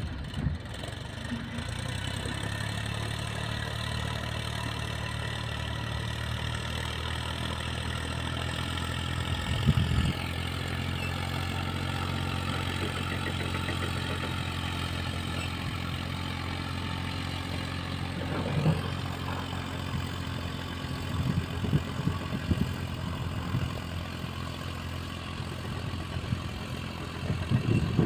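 Massey Ferguson 7235 tractor's three-cylinder diesel engine running at a steady speed under load while pulling a disc harrow. A few brief louder bursts of noise come at about ten seconds, near the middle and toward the end.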